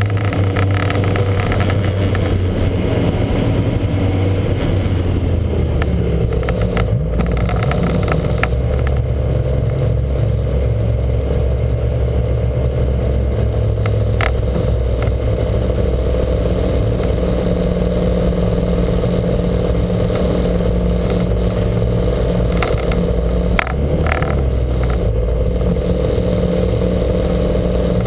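Lancia Montecarlo's four-cylinder twin-cam engine running at part throttle, its pitch stepping up and down a few times, with a brief crackle about two thirds of the way through.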